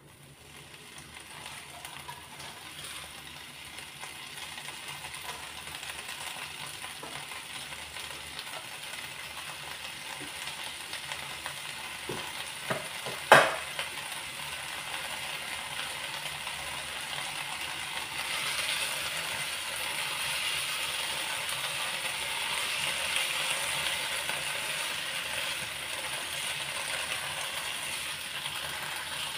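Brazilian spinach leaves sizzling in hot oil in a nonstick frying pan, the hiss building up after the leaves go in and getting stronger in the second half. A single sharp knock sounds about halfway through.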